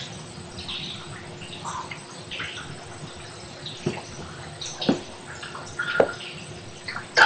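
Water dripping inside an echoing tunnel. Small drips scatter throughout, and four sharper, louder drops land about a second apart in the second half.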